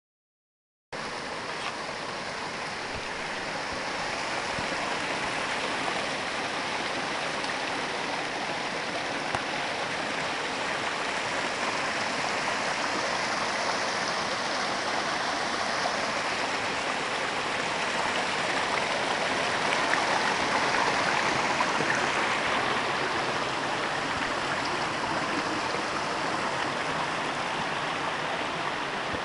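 Steady rush of a mountain stream's flowing water, starting abruptly about a second in and swelling slightly later on.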